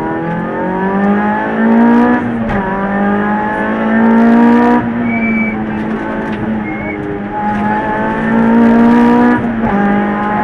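Peugeot 206 rally car's engine heard from inside the cabin, pulling hard at speed with its note climbing in pitch. The note breaks briefly about two and a half seconds in and again near the end, as gears are changed.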